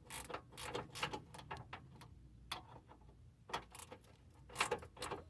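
Cornwell double flex ratcheting wrench clicking in short irregular bursts as it is swung back and forth to take a bolt off.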